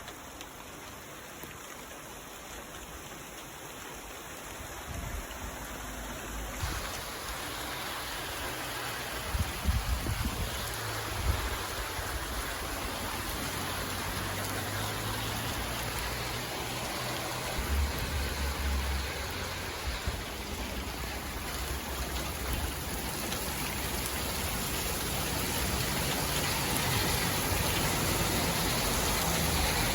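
Rain falling during a thunderstorm, growing steadily heavier and louder, with irregular low rumbles now and then.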